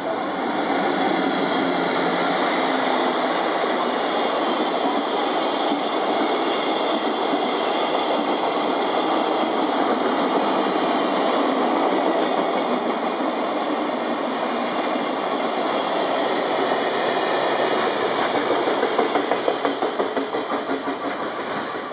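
Container freight train behind a pair of JR Freight EF64 electric locomotives running past, a steady rolling rumble of wagon wheels on rail. Near the end the sound breaks into a quick rhythmic clickety-clack of wheels over rail joints.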